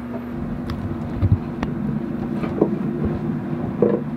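A steady mechanical hum with a handful of short metallic knocks and clicks from a wrench working on the seacock skin fittings inside the hull.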